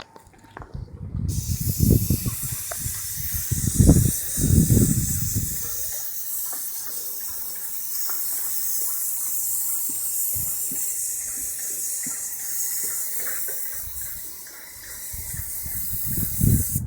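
Airless paint sprayer with a 308 fine-finish tip spraying paint: a steady high hiss that starts about a second in and cuts off near the end. Wind gusts on the microphone, strongest in the first few seconds and again just before the hiss stops.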